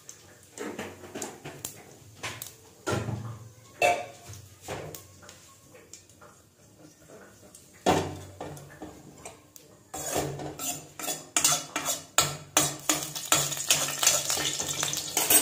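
Metal clinks and knocks of a spoon and pan on a nonstick kadai while cumin seeds heat in oil. The clicks are scattered at first and come much faster and closer together over the last five seconds.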